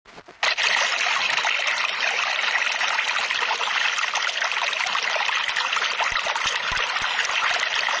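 Steady trickling of running water, starting suddenly about half a second in.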